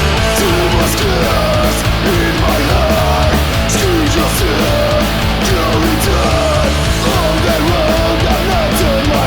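Punk rock band recording: distorted electric guitars, bass and drums playing loud and steady, with a melody line that slides and bends in pitch over them.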